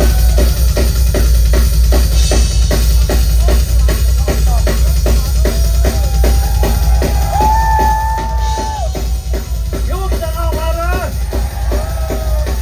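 A band playing loud, drum-driven rock: a drum kit keeps a fast, steady beat of about four strokes a second over heavy bass, and a wavering melodic line comes in about halfway through.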